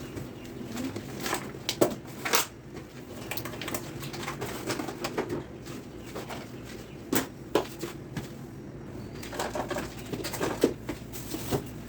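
Items being taken out of a refrigerator and set down: scattered knocks and clatters, a few of them sharp.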